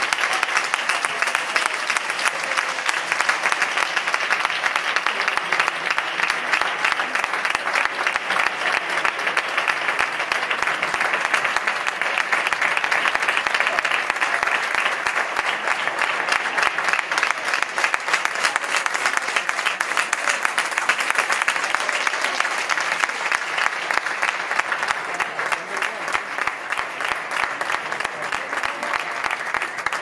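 Large audience applauding steadily, many hands clapping at once, easing slightly near the end.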